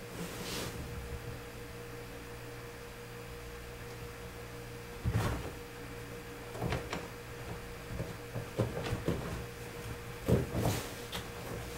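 Kittens scrambling and pouncing on a sheet-covered sofa: scattered bursts of rustling cloth and soft thumps, the loudest about five seconds in and near the end, over a steady room hum.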